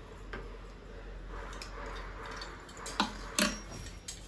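Dog leash and harness handled as they are lifted out of a drawer: light clicks and rustling, with two sharper clacks a little past three seconds in.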